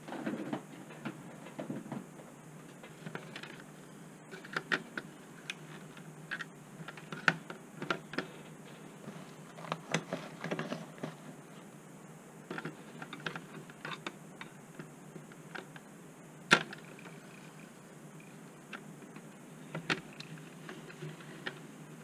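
Irregular clicks and light knocks of plastic-framed circuit boards and wires being handled and set down on a wooden desk, with one sharper click about two-thirds of the way through.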